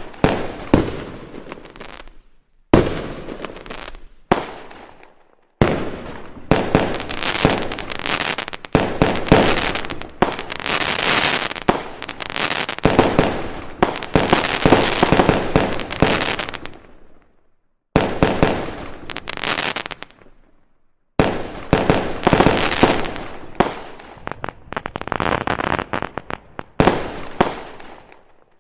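Fireworks sound effect: volleys of bangs and dense crackling pops in a rapid string. It stops abruptly for short silent gaps a few times, then starts again.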